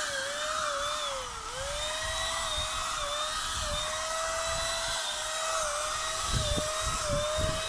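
Electric paint sprayer's motor whining steadily as it sprays enamel onto a car body. Its pitch wavers slightly and dips briefly about a second and a half in.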